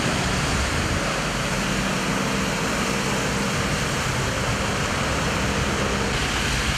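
Vehicles driving through floodwater on a road: a steady rush of churning, splashing water under a low engine hum.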